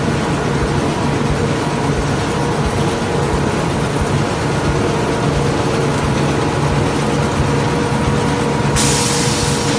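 Factory machinery running with a steady, loud drone and a constant hum. A hiss starts near the end and lasts about a second.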